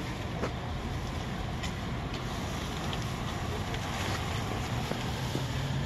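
Wind blowing across the microphone outdoors: a steady low hiss with a few faint ticks.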